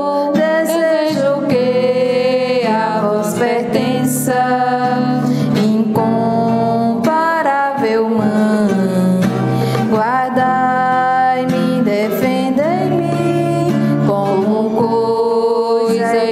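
Women singing a slow hymn together, accompanied by an acoustic guitar.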